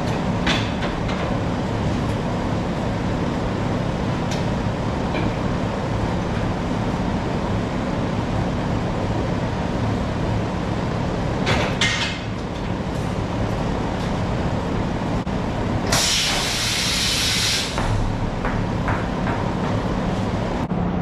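Tire changer mounting a tire on a rim, with a steady low machine hum and a few clicks and knocks. Near the end comes a loud hiss of compressed air lasting about two seconds as the tire is inflated.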